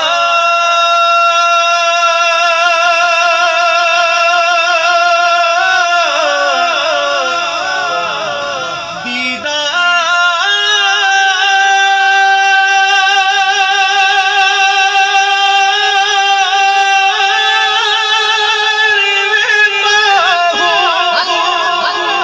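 A man singing long, held notes with a wavering vibrato in a Punjabi Sufi devotional song. The melody glides through runs between the sustained pitches and settles on a higher note about halfway through.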